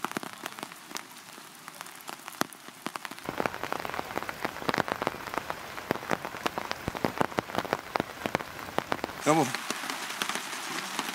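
Rain falling, with many separate drops ticking. From about three seconds in, the drops come denser and louder.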